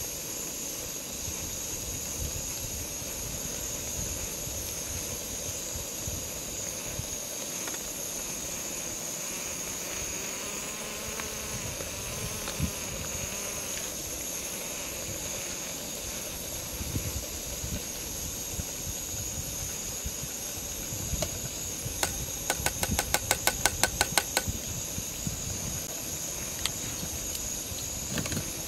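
Steady hiss of a camping gas stove burner running under a cooking pot. About two-thirds of the way through comes a quick run of a dozen or so sharp metallic clicks.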